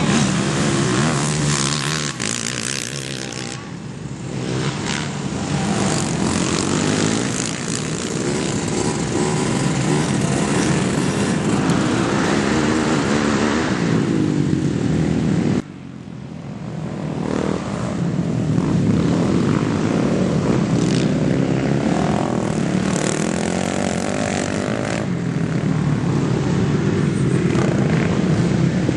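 Racing quad engines revving up and falling away as the quads race round the dirt track, more than one at once. A little past halfway the sound drops suddenly, then builds back up.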